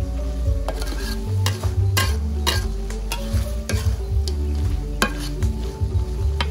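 A metal spatula scrapes and clanks irregularly against an aluminium wok while stir-frying bitter melon and chicken, with the food sizzling in the pan.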